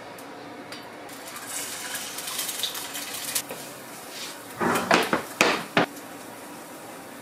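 An egg frying in a nonstick pan on a gas burner: a hissing sizzle for a couple of seconds after it goes into the pan. About halfway through comes a short burst of several loud clattering knocks as a food storage container and its lid are handled.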